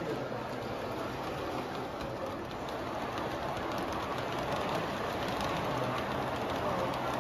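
Model freight train's coal hopper cars rolling past on the track: a steady rumble of wheels on the rails.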